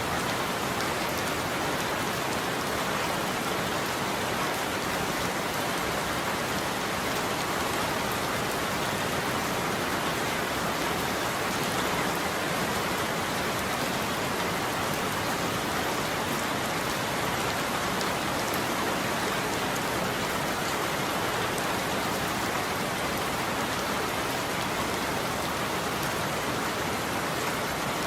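Steady rain falling on a roof: an even, unbroken patter with no thunder.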